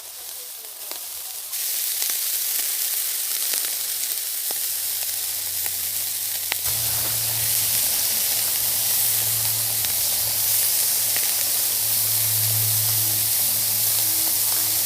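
Food sizzling as it fries in hot oil in a pan. The sizzle gets louder about a second and a half in and again about seven seconds in, when a low hum joins underneath.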